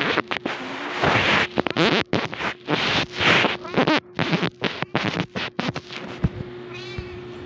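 Rustling and scratching right on the microphone in irregular bursts, as the phone rubs against a cat's fur and the bedding, over a faint steady hum.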